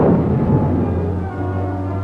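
Orchestral film score with long held notes, coming in about a second in as a loud roaring noise fades out.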